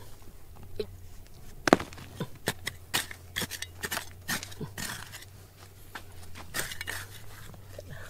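Irregular clicks, knocks and scrapes, the loudest a sharp knock about two seconds in, over a steady low hum.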